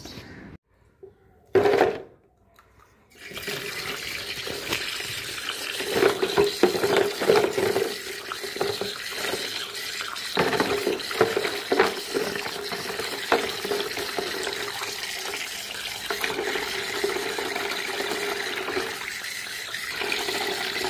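Tap water running and splashing over a plastic phone housing into a plastic basin, a steady splashing rush that starts about three seconds in after a brief loud noise.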